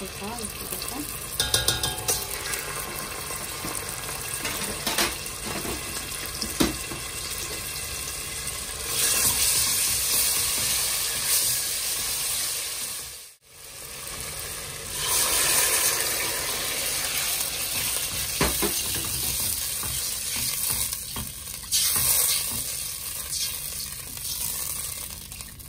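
Tomato paste sizzling as it fries in oil in a stainless steel pot, stirred with a wooden spatula that now and then knocks and scrapes against the pot. The hissing grows louder in stretches, and the sound cuts out briefly about halfway through.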